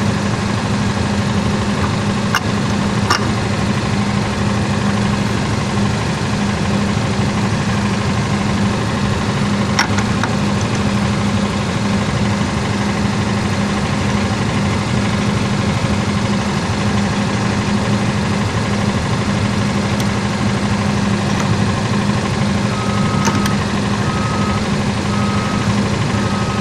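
An engine running steadily at a constant speed with a low hum, with a few sharp clicks. Near the end a vehicle's reversing beeper starts, beeping about once a second.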